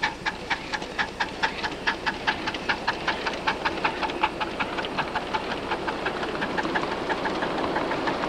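Ride-on scale model train rolling slowly past, its wheels clicking steadily over the rail joints about four times a second. The clicks grow fainter toward the end as a hiss rises.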